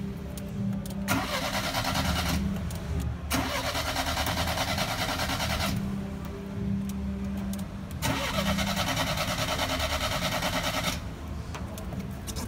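Chevrolet Chevette's starter motor cranking the engine in three separate tries, the first short and the next two longer, each stopping abruptly.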